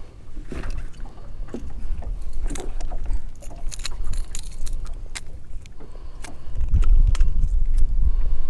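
Scattered small metallic clicks and rattles of fishing pliers and lure hooks as a bass is unhooked. About two-thirds of the way through, a loud low rumble comes in and dominates.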